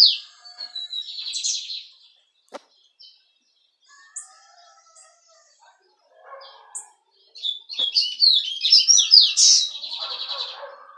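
Caged songbird, the kind called a cabeça-preta, singing in fast, varied phrases of high chirps and trills. A phrase and a short trill come in the first two seconds, then a few single chirps, then a long, dense burst of song from about seven and a half seconds to near the end.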